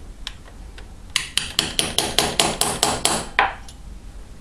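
A small hammer tapping a punch in a quick run of about a dozen light metal taps, roughly five a second, then one last tap. It is driving down the tang of a thread insert fitted in the rocker stud hole of a Morini cylinder head, to break the tang off.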